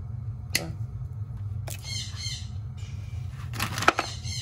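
A parrot squawking in two short bouts of high, scratchy calls, about two seconds in and again near the end. Two sharp clicks fall between them, the louder one near the end.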